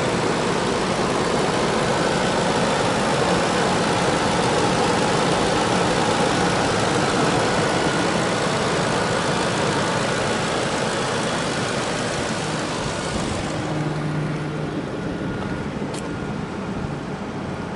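2005 Ford F-150 engine idling steadily under the open hood. About three-quarters of the way through, the sound turns a little quieter and duller.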